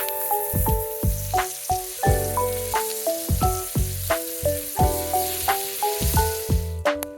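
Steak sizzling as it cooks over a campfire, a steady hiss that cuts off suddenly near the end. Calm piano-like background music plays throughout.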